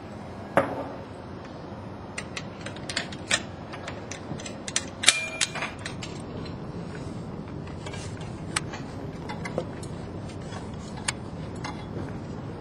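Irregular metallic clicks and clinks of fall-protection rescue hardware (snap hooks, carabiners and the rope device) being handled, over a steady background noise. The sharpest click comes about half a second in, a cluster of clinks follows, and a louder clink with a brief ring comes about five seconds in.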